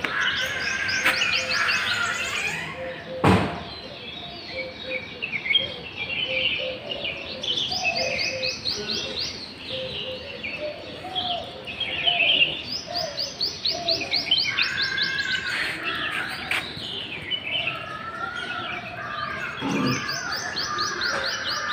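Several birds chirping and singing together, with fast runs of high repeated notes over a lower line of short calls. A single sharp knock sounds about three seconds in.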